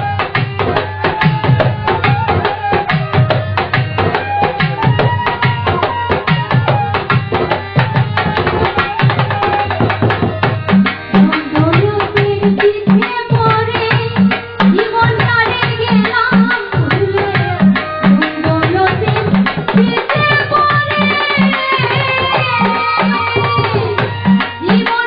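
Live Bangladeshi folk music: tabla playing a fast, steady rhythm, with deep pitched strokes from the bass drum, under melody lines from the accompanying instruments.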